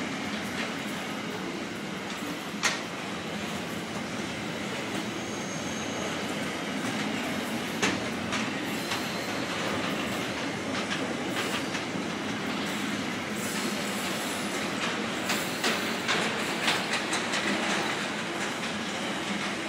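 Intermodal freight train's container wagons rolling past with a steady rumble of wheels on rail. Sharp clacks from the wheels about three and eight seconds in, and a run of them near the end.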